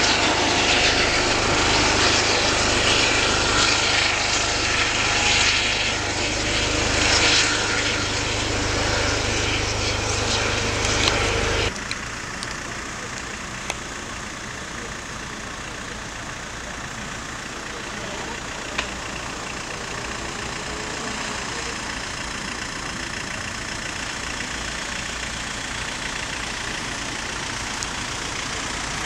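Police helicopter flying overhead, a steady loud rotor and engine sound. It cuts off abruptly about twelve seconds in, leaving quieter road traffic and street noise with a couple of faint clicks.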